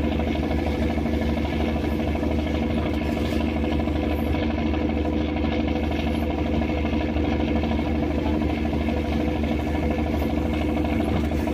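Fishing boat's engine running steadily, a constant drone with no change in pitch or loudness.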